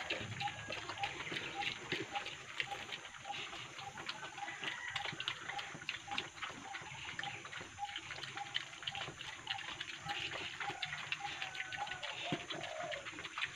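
Two piglets eating dry starter feed from a trough: a steady, dense crackle of small clicks from their chewing and crunching.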